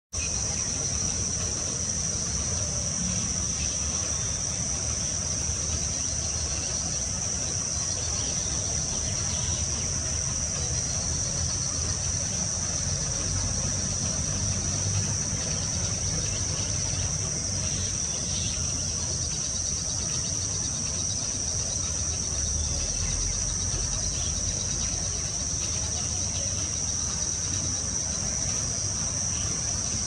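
Insects, such as crickets or cicadas, give a steady, unbroken high-pitched drone, over a low background rumble.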